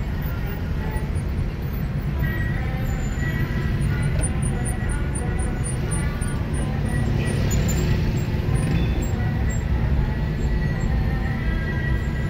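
Low, steady rumble of a car's engine and road noise heard from inside the cabin while crawling in heavy stop-and-go traffic, with a brief hiss of passing traffic about seven to nine seconds in.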